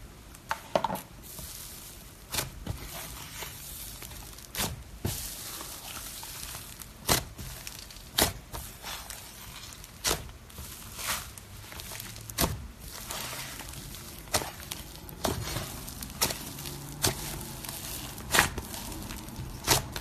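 Slime being squished and poked, giving irregular sharp pops and clicks about once a second over a soft hiss.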